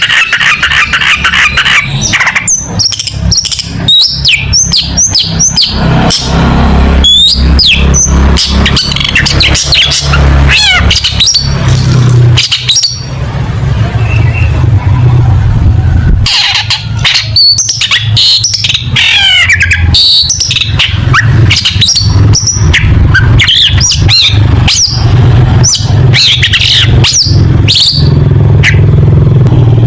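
Long-tailed shrike (cendet) singing a loud, fast, varied song of sharp chirps, rapid trills and quick whistled sweeps, with a steady low hum beneath.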